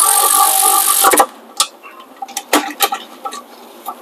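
Cordless electric ratchet running fast, spinning a rear brake caliper bracket bolt tight, then stopping abruptly about a second in with a few sharp clicks as the bolt seats. Scattered light metal clicks and knocks follow as the tool is handled.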